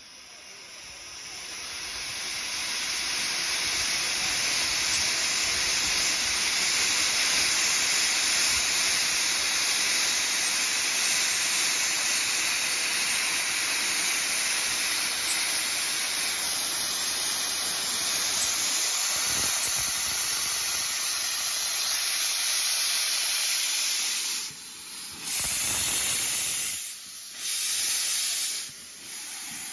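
Steam locomotive venting steam: a loud, steady hiss that swells over the first few seconds and holds, then breaks into several separate blasts near the end.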